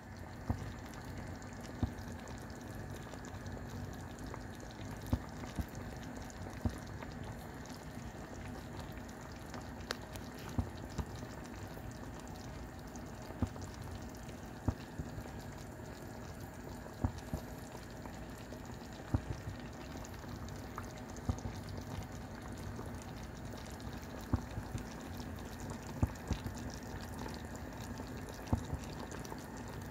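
Liquid simmering in a frying pan: steady bubbling with irregular small pops and ticks, as the soda, lemon and soy sauce broth around chicken nuggets boils down.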